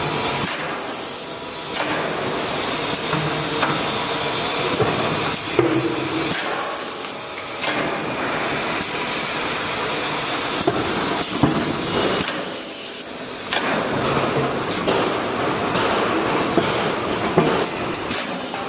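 5-gallon bottle rinsing-filling-capping machine running: a steady spraying hiss, with sharper hissing blasts every few seconds and short dips about every six seconds as the machine cycles.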